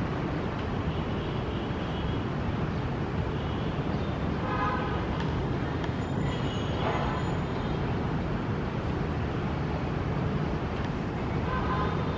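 Steady low rumble of an Airbus A320-251N's CFM LEAP-1A jet engines at taxi power as the airliner rolls along the taxiway.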